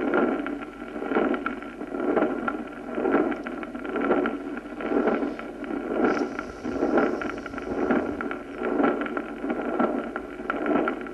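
Heart auscultation recording of the continuous 'machinery' murmur of Gibson, the sign of a patent ductus arteriosus. A rushing murmur runs without a break through both silences of the heart cycle, swelling about once a second and blotting out the second heart sound.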